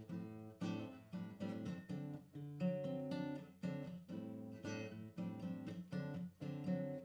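Background music of plucked acoustic guitar, with notes falling at a steady pace of about two a second.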